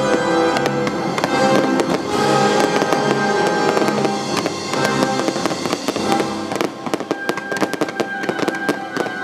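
Fireworks popping and crackling over loud show music, with the crackles thickest in the second half.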